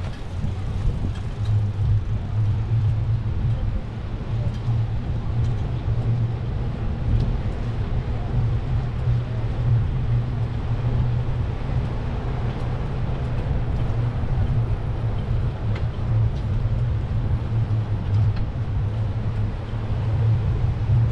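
Steady low rumble of wind buffeting the camera microphone, with riding noise from a bicycle ride, and no single clear event standing out.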